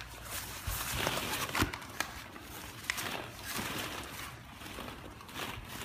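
Hollow plastic ball-pit balls rustling and clicking against each other as a toddler crawls in among them, with scattered sharp knocks.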